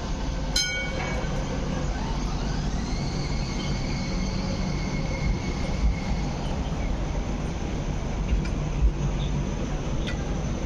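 Hong Kong Light Rail Phase 5 light rail vehicle pulling away at close range: its motor whine rises in pitch for about a second and then holds steady, over the steady rumble of the wheels on the rails. A brief ringing tone sounds near the start.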